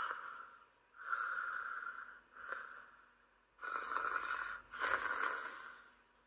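A person imitating snoring: a series of about five breathy snores, each up to about a second long, with short pauses between.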